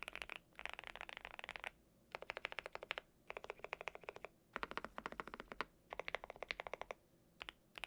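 Fast typing on a GMK81 mechanical keyboard with lubed Gateron Oil King linear switches and Cherry-profile keycaps: rapid runs of key clicks in bursts of about a second, with short pauses between them.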